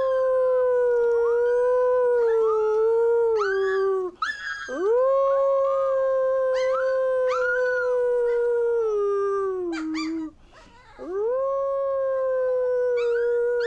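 A man and a very young wolf pup howling together: long, steady howls that break off twice and start again with an upward glide, with higher, shorter, wavering howls over them.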